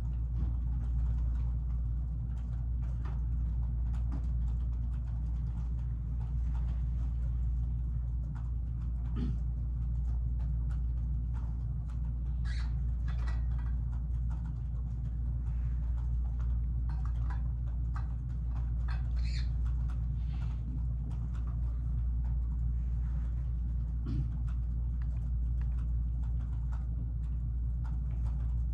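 Steady low room hum, with faint scattered clicks and rustles over it.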